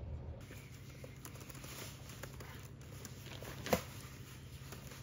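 Laptop keyboard typing: soft, scattered key clicks, with one sharper click a little under four seconds in, over a low steady hum.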